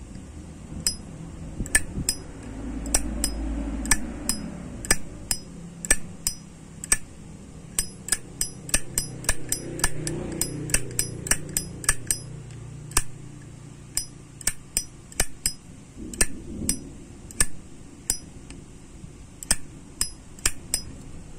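Zippo lighter's hinged lid flicked open and snapped shut over and over, each a sharp metallic clack with a bright ring, at times several a second.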